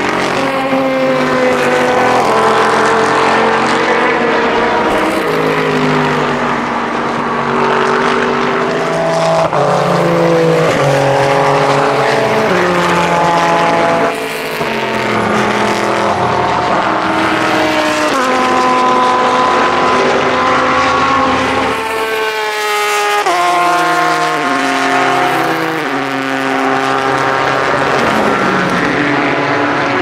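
Several endurance race cars, both prototypes and GT cars, running past on track. Their engines overlap, each rising and dropping in pitch in steps through gear changes, with a sharp climb through the gears a little after two-thirds of the way in.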